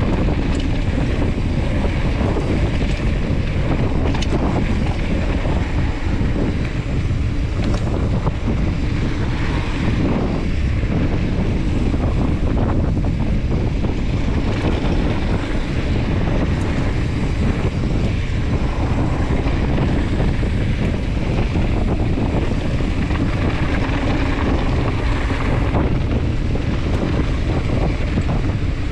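Wind buffeting the microphone of a handlebar-mounted camera during a fast mountain-bike descent on a dirt trail, a steady loud rumble with the tyres running over the dirt and a few sharp clicks and rattles from the bike.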